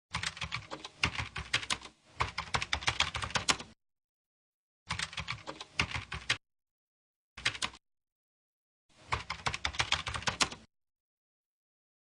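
Computer keyboard typing clicks in five short bursts of rapid, uneven keystrokes, each cut off abruptly with dead silence between, the way a typing sound effect is laid under on-screen text.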